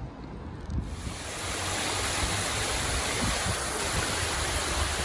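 Water cascading down stepped stone terraces of a man-made waterfall: a steady, even rushing splash that starts suddenly about a second in.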